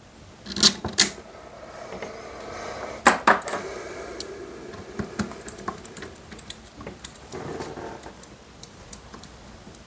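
Small metal clicks and ticks as 4-40 machine screws are fitted through an aluminium plate and turned in with a small precision screwdriver. A few sharper clicks come in the first few seconds, then lighter irregular ticking.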